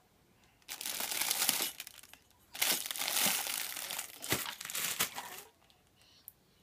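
Plastic-wrapped items and packaging in a cardboard box crinkling as a baby's hand grabs and pulls at them, in two stretches: about a second long near the start, then about three seconds from the middle on.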